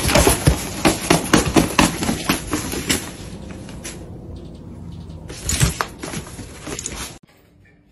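Crackling, crinkling rustle of a suitcase's nylon lining as two Sphynx cats scramble and paw about in it. It comes in two spells, dense at first and again later, and cuts off suddenly near the end.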